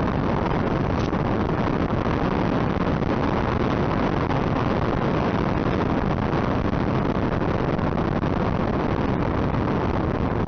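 Steady rushing wind noise from an RC P-38 model plane in flight, heard by its onboard camera, with no distinct motor or propeller tone.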